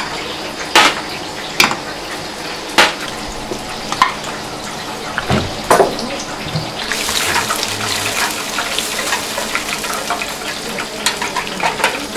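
A few sharp knocks and clinks of kitchen utensils and dishes. From about seven seconds in, oil in a deep fryer sizzles with a steady hiss and crackle.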